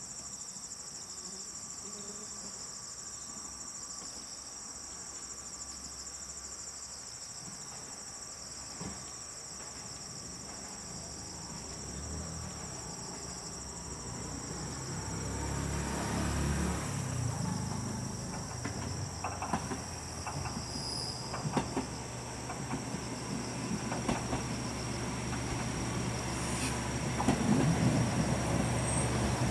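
A JR West KiHa 120 diesel railcar approaches and draws in. Its engine grows steadily louder from about halfway through, and the wheels click over the rail joints in the last ten seconds. Insects chirr steadily throughout.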